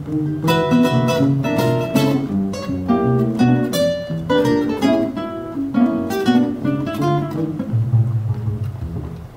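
Classical guitar ensemble playing together: many nylon-string guitars plucking melody notes and strummed chords over a bass line. Near the end the higher parts drop away and the low bass notes carry on alone.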